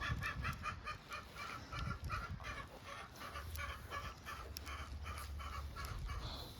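Chickens clucking in a quick, even series of short calls, about four a second.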